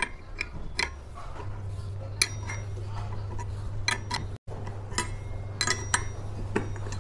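Sharp metal clinks of a spanner working the nut of a bearing puller, turned in short strokes to draw the needle bearing out of a scooter's clutch pulley. The clicks come irregularly, about ten in all, over a steady low hum.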